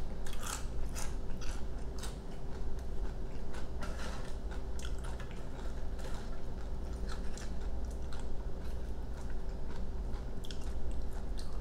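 Close-miked chewing of crunchy tortilla chips, with crisp crunches about twice a second in the first couple of seconds, then softer, sparser mouth sounds and clicks.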